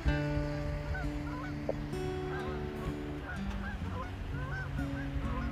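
Background music of long held notes, with short arching bird-like calls sounding over it again and again.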